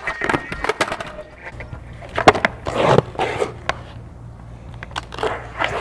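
Freestyle skateboard on concrete: wheels rolling and the deck clacking and knocking several times as tricks are tried.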